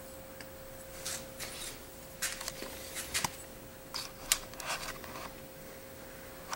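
Hands handling a titanium framelock knife handle: scattered small clicks and rubs, the sharpest about four seconds in, over a faint steady hum.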